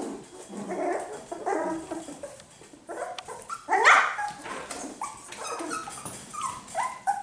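Young cockapoo puppies yipping, giving small barks and whimpering in a run of short, high calls. A louder rising yelp comes about four seconds in.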